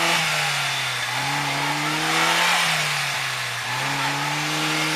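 Off-road 4x4's engine revving up and easing off in slow waves, about every two and a half seconds, as the vehicle works through a muddy forest rut. A rushing hiss swells at the middle peak.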